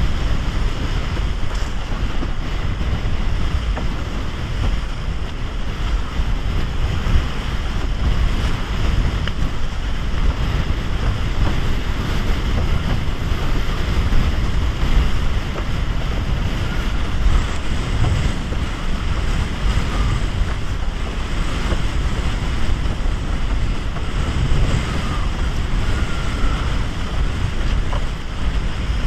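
Steady wind noise buffeting the microphone, with water rushing past a windsurf raceboard sailing fast in a 4–6 Beaufort wind.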